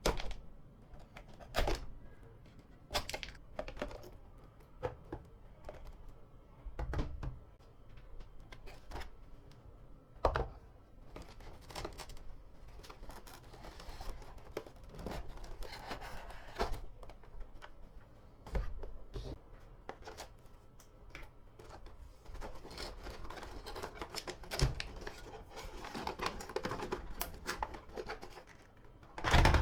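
Miniature plastic toy kitchen pieces being unboxed and handled: scattered clicks, taps and knocks, with stretches of rustling, and one sharp knock near the end.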